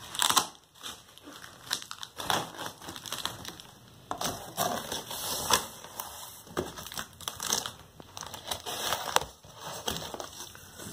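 A large cardboard shipping box being opened by hand: packing tape slit and pulled off, and the cardboard flaps scraping and crackling in irregular bursts.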